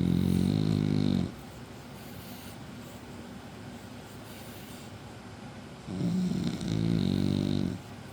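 French bulldog snoring: two long, low snores. The first is already under way and ends about a second in; the second starts about six seconds in and lasts almost two seconds.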